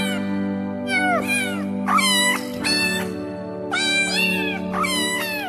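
Kittens mewing: about half a dozen high-pitched mews, each falling in pitch, over steady background music.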